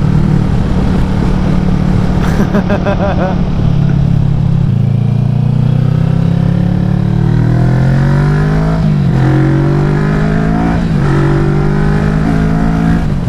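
Kawasaki Vulcan S parallel-twin engine running under way, heard from on the bike with wind rumble on the microphone. It holds a steady pitch at first, then accelerates: the pitch climbs and drops sharply at two upshifts, about two-thirds of the way in and again shortly after.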